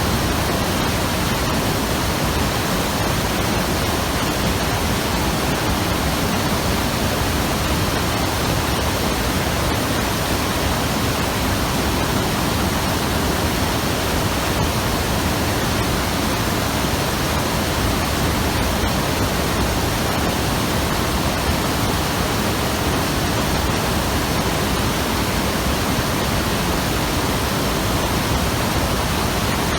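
Fast-flowing mountain river rushing over rocks: a steady, dense roar of water.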